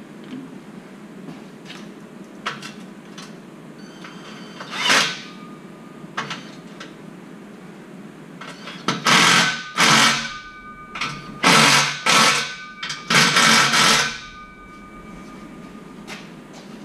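Power tool running in short bursts on the tailpipe clamp of an MBRP 4-inch cat-back exhaust during a tailpipe adjustment: one burst about five seconds in, then about six quick bursts over the next five seconds, each with a steady motor whine. Light clicks and clanks of hand work on the exhaust come between them.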